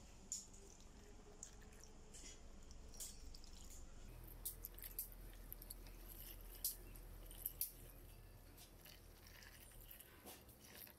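Faint pouring of liquid rust remover from a plastic bottle into a shallow plastic tub, with small splashes and scattered drips.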